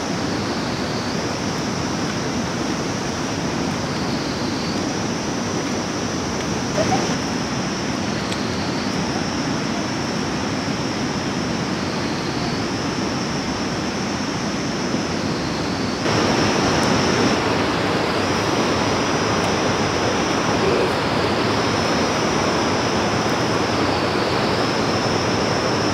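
Steady rushing of running stream water, which gets louder about two-thirds of the way through, with a steady high-pitched buzz above it that shifts slightly in pitch every second or two.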